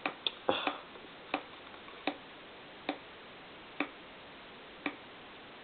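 Box fan blade coasting down after switch-off, clipping the fan housing with a sharp tick each time round; the ticks come further and further apart as the blade slows. The heavy old Robeson blade sits right up against the housing of the Lasko 3733 box fan.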